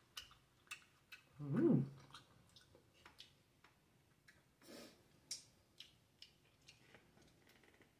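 Quiet eating sounds: chewing and small wet clicks from handling the food, with a short vocal sound about one and a half seconds in.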